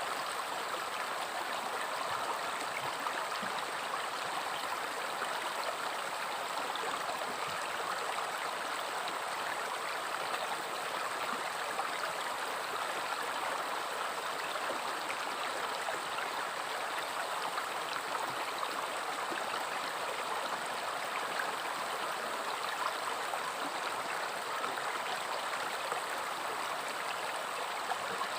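River water flowing steadily over rocks with a constant rushing, babbling sound.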